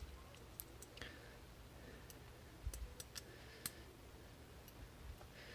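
Faint, scattered clicks of small metal knife parts being fitted by hand, as the pivot is put back into the Zero Tolerance 0022 folding knife. A handful of sharp ticks, the loudest a little under three seconds in.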